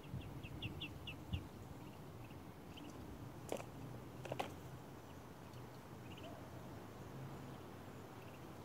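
Quiet spring woodland: a bird gives a quick series of short, high chirps in the first second, with a few more brief chirps later, and two sharp clicks come about a second apart near the middle.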